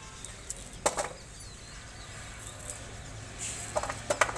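Small knife cutting thin slices from a raw bamboo shoot held in the hand: a sharp click about a second in and a quick run of clicks near the end as the blade cuts through.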